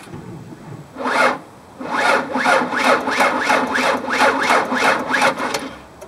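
Starter motor cranking a fuel-injected 3.8-litre V6 slowly and labouring, at about three compression strokes a second, for roughly four seconds without the engine catching. The sluggish crank is the sign of a weak, low battery.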